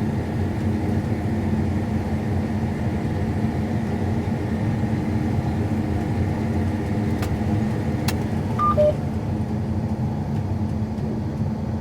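Combine harvester running steadily, a continuous hum of engine and threshing machinery. Two faint clicks and a short two-note beep come about three quarters of the way through.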